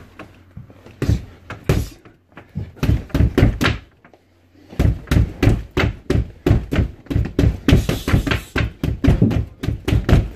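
Gloved punches thudding into an RDX heavy bag in combinations: a couple of single hits, a short flurry, a pause about four seconds in, then a long run of rapid punches, about four a second.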